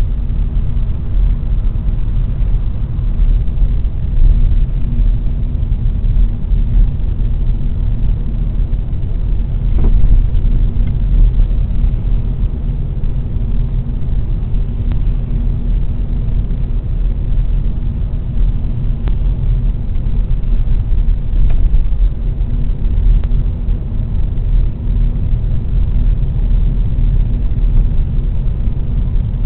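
Hyundai Elantra J4 on the move: steady low road and running rumble with a few faint knocks now and then. The knock is taken for a fault in the left front strut.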